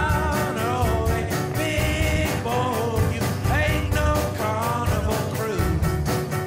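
Rock-and-roll song with singing over a steady beat.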